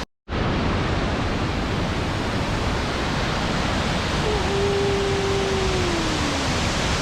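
Steady rush of a waterfall, starting abruptly after a brief dropout. About halfway through, a single long tone slides slowly downward for a couple of seconds over the rushing water.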